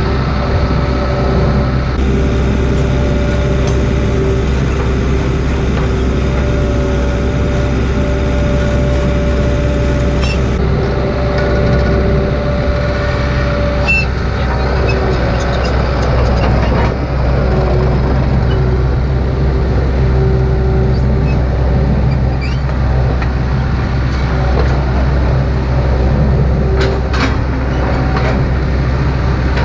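Diesel engine of heavy equipment running steadily, with a few metallic clicks and clanks in the second half.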